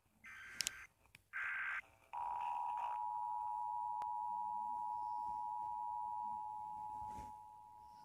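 Emergency Alert System test, made glitchy: two short, cut-off bursts of the buzzing digital SAME header tones, then about two seconds in the EAS two-tone attention signal starts, a steady dual-pitched tone that drops in level near the end.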